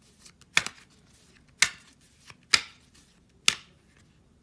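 Four sharp taps, evenly spaced about a second apart.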